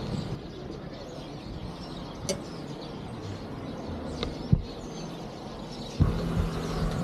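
Outdoor ambience with faint bird chirps and a few short sharp clicks. A louder low steady hum starts about six seconds in.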